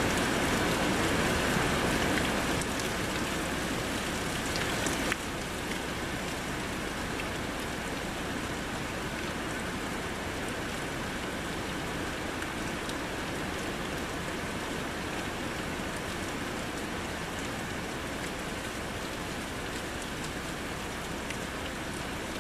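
Steady rain of a thunderstorm downpour, falling as an even hiss with no distinct thunder. About five seconds in the level drops abruptly, then holds steady.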